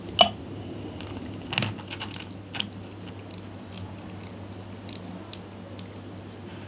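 Slime being handled and mixed, heard as scattered small sticky clicks and crackles. A sharp click with a short ring comes just after the start, like a hard plastic container knocking.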